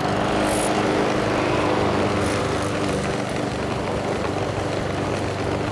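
Walk-behind gas lawn mower engine running steadily at working speed as the mower is pushed across the grass.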